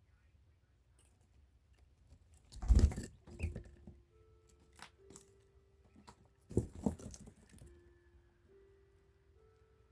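Male quail crowing twice, about four seconds apart. Each crow is a short, harsh call of a few quick notes. Faint background music with held notes plays underneath.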